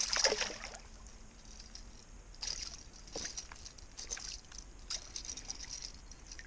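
Water splashing and sloshing in short, irregular bursts as a hooked bass thrashes at the surface while being reeled in toward the shore.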